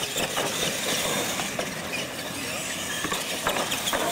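Two R/C monster trucks racing across concrete, their motors running steadily, with several sharp knocks as they come down off the ramps.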